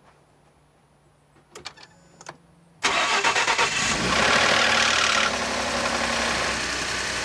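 A few light clicks, then the 2011 Ford F-150's 3.5-litre twin-turbo EcoBoost V6 is cranked by the starter and fires almost three seconds in. It runs loudly at a cold fast idle for a couple of seconds, then settles to a steadier idle. This is the rattling noise the engine still makes on cold start after its timing chain was replaced.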